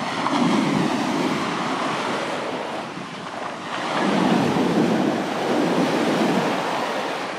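Sea waves breaking and washing up the shore, the surf swelling loudly twice and easing between.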